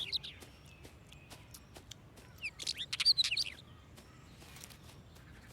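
Songbird chirping in short quick bursts, once right at the start and again in a cluster around the middle.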